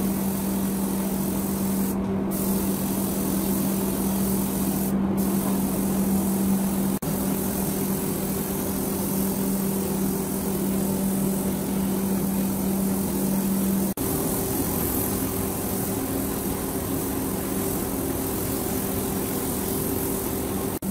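Compressed-air spray gun hissing steadily as it sprays finish onto carved wood, over a steady low hum. The hiss drops out briefly twice in the first few seconds.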